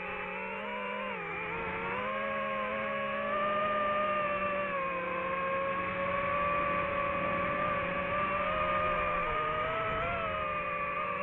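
DJI FPV drone's motors and propellers whining steadily, the pitch drifting slightly up and down with throttle.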